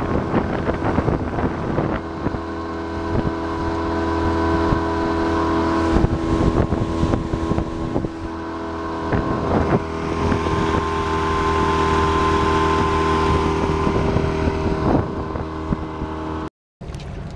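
Motor of a small open aluminium boat running steadily under way, with water splashing against the hull and wind buffeting the microphone. The engine note breaks off suddenly near the end.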